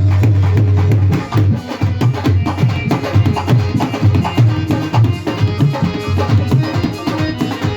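Live instrumental Indian devotional music: hand drums playing fast, dense strokes with a deep low drum beat, under sustained melody notes.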